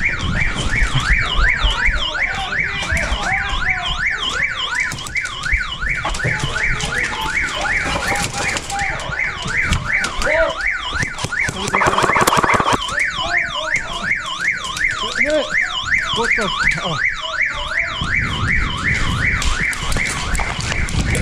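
Electronic alarm siren sounding without a break, its pitch sweeping up and down between a low and a high note two to three times a second.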